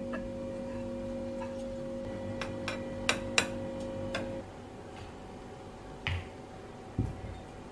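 Several sharp clicks of a plastic knife against a ceramic plate over a steady electrical hum. The hum stops about four seconds in, and a couple of soft thumps follow as mugs are set down on cork coasters on a cloth-covered table.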